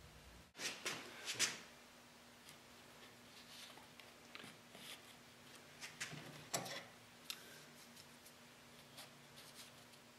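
A scattered series of light clicks and taps, loudest in a cluster near the start and again about six and a half seconds in, over a faint steady hum.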